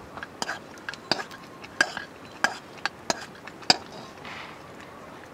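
Metal ladle stirring a cooking pot, clinking sharply against the pot about once every half second to second, about eight times, stopping about three and a half seconds in.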